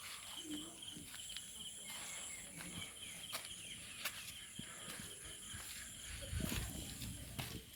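Insects chirring steadily at two high pitches, one of them a fast pulsing trill. Scattered light clicks and a brief low rumble come about six and a half seconds in.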